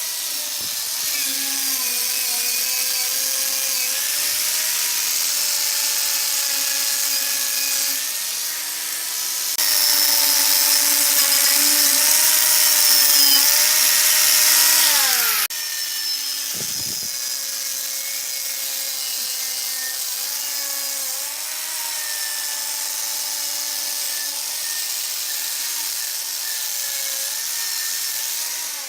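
Handheld electric power tool running steadily on metal, its motor pitch dipping and recovering as it bears on the work, with a louder, harsher stretch from about ten to fifteen seconds in.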